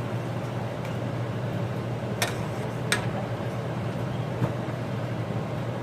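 Steady low hum under a haze of noise, with two sharp clicks a little under a second apart about two seconds in.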